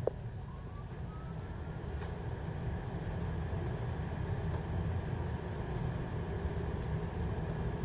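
A train running in, a low rumble that grows slowly louder, with a faint rising whine about half a second to two seconds in.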